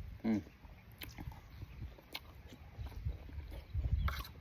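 A person chewing a mouthful of bamboo shoots and pork belly close to the microphone, with wet mouth clicks. There is a short hum with the mouth closed about a quarter of a second in.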